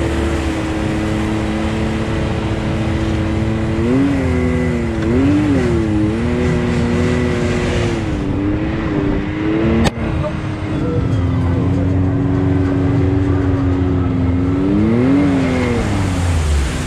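Can-Am Maverick X3 Turbo side-by-side's turbocharged three-cylinder engine running at a steady pitch, with short revs of the throttle about four and five seconds in and again near the end.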